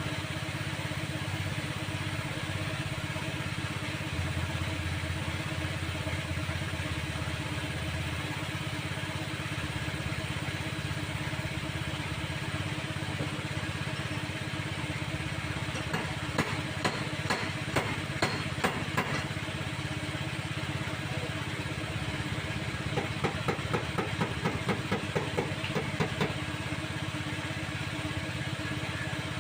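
A motor running steadily. Two runs of quick, light taps or knocks at about three a second come over it, one around the middle and one later on.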